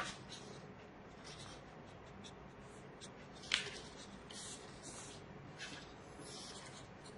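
Felt-tip marker (a water-based Prockey) being drawn across textbook paper in short scratchy strokes as the text is marked up, with a sharp tap about three and a half seconds in.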